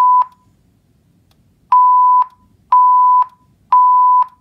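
System Sensor SPSRL fire alarm speaker strobe sounding a steady 1 kHz alert tone in the temporal-three (Code 3) evacuation pattern: the tail of one beep, a pause of about a second and a half, then three half-second beeps, each starting and stopping with a click.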